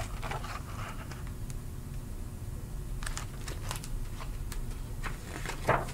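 A hardcover picture book being handled and its page turned: a few light paper clicks and rustles, mostly in the second half, over a steady low hum.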